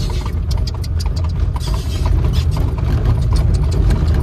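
Horse-drawn buggy rolling along a paved road, heard from inside the cab: a steady low rumble from the wheels, with rapid clicking and rattling from the buggy and the trotting horse's hooves.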